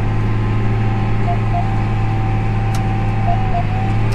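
1995 John Deere 8400 tractor's diesel engine running steadily under load while pulling a grain drill, heard inside the cab. A steady whine rides above the engine hum and dips briefly in pitch in two pairs.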